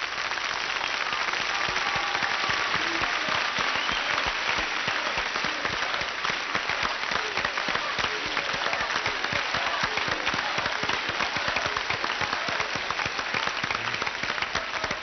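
Studio audience applauding steadily after a song, dense clapping.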